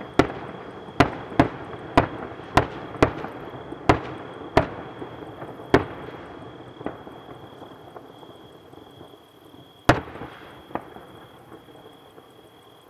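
Fireworks going off: a rapid run of sharp bangs, about two a second, with crackling between them, thinning out after about six seconds to a few scattered bangs, the loudest one near the end.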